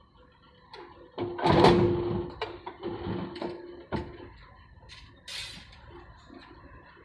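Electric rebar cutting machine shearing a bundle of deformed steel bars: a loud grinding crunch about a second and a half in over the hum of its motor, then several sharp metallic clanks as the bars are handled.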